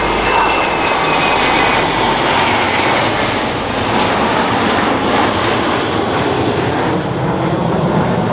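Four F-16 Fighting Falcons flying past in close formation, their Pratt & Whitney F100 turbofans a loud, steady jet roar. A faint, slightly falling whine sits on top in the first few seconds.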